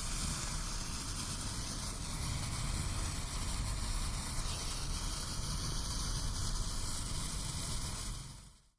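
Jet crackle ground firework fountain burning, a steady hissing rush of spraying sparks over a low rumble, which dies away just before the end.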